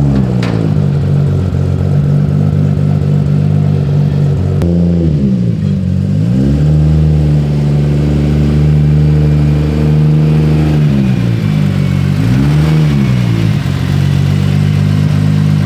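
Turbocharged Honda S2000 engine idling loudly, its revs rising and falling a few times as the car is driven down off a trailer.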